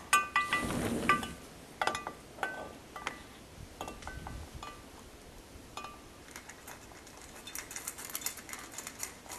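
A puppy ringing small hanging door bells to ask for the door to be opened: a burst of jingling at the start, then several separate single tinkles a second or so apart, growing fainter.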